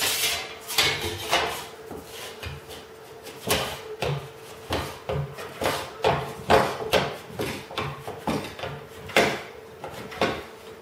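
Thin aluminium aircraft nose rib being bent straight by hand with a wooden lever tool on a workbench: irregular knocks, clicks and rattles of the sheet metal and the wood, roughly one or two a second, as the flutes and edge flanges are worked. A faint steady hum runs underneath.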